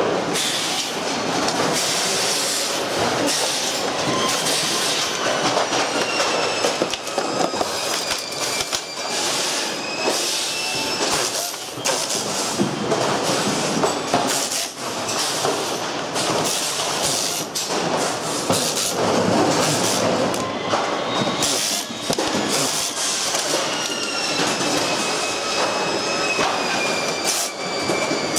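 Continuous clatter and clicking of plastic and metal parts as a pachinko machine's frame and covers are pried apart and handled. A thin high machine whine that slowly drifts up and down in pitch runs on and off underneath.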